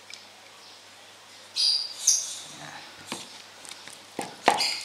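A short high-pitched squeak about a second and a half in, then several light clicks of a metal spoon against a plastic jug as thick bait paste is stirred.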